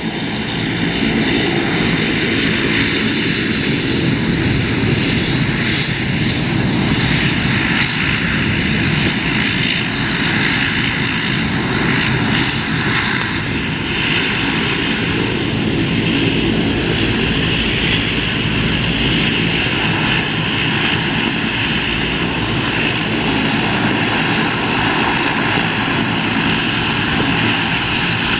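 Airplane engines running loudly and steadily, a continuous roar with a low hum of steady tones beneath it.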